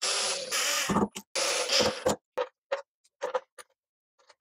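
Ryobi cordless drill/driver running twice in short bursts of about a second each, driving screws, with a steady high motor whine; then a few light clicks and taps of parts being handled.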